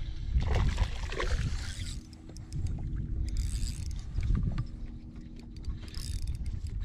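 Spinning reel being cranked to wind in line against a small, fighting bass, a mechanical winding with scattered sharp clicks.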